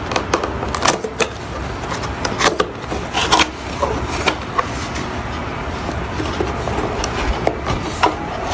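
Keyboard packaging being opened by hand: irregular taps, clicks and rustles of cardboard and packing over a steady background hiss.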